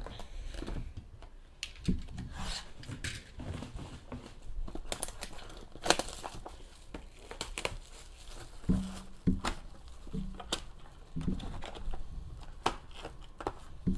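Packaging being torn open and crinkled by hand: irregular sharp tears and crackles of wrapping and card-pack foil as trading-card packs are opened.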